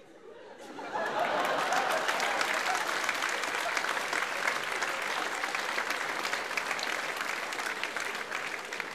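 Theatre audience applauding at the end of a sketch, starting sharply about a second in, holding steady and starting to fade near the end.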